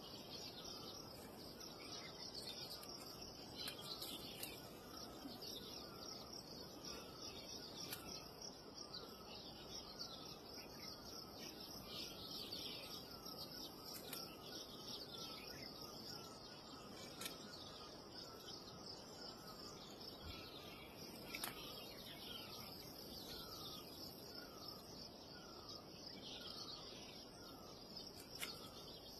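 Faint outdoor ambience: a bird's short falling chirp repeated about once a second over a steady high insect buzz, with a few sharp clicks.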